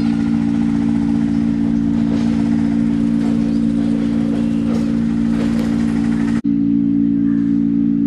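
A steady, unchanging engine-like hum, as from a motor or generator running nearby, with a brief break about six seconds in.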